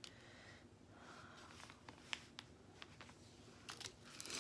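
Faint rustling and crinkling of small plastic drill bags being handled, with scattered light clicks, and a louder crinkle near the end.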